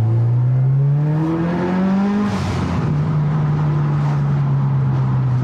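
Turbocharged Subaru flat-four running through a catless downpipe, accelerating with its exhaust note rising in pitch for about two seconds. The revs then drop sharply with a short burst of hiss, and the engine runs on at a steady lower pitch.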